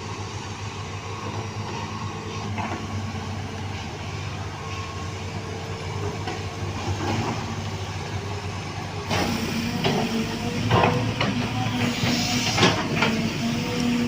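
Heavy construction machinery's diesel engines running steadily. About nine seconds in the engine noise grows louder and a series of sharp metallic clanks and knocks comes in.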